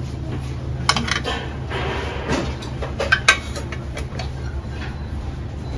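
Small serving spoons clinking against a ceramic sauce bowl and the sauce trays: a few short sharp clinks, the strongest a pair about three seconds in, over a steady low hum.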